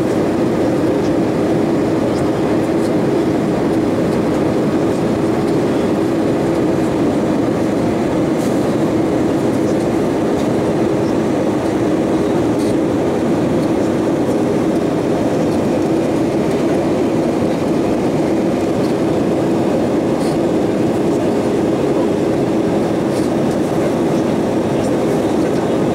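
Steady cabin noise inside an Airbus A320-232: the even rush of airflow and the drone of its IAE V2500 turbofans, with a constant hum low in the middle range that holds unchanged throughout.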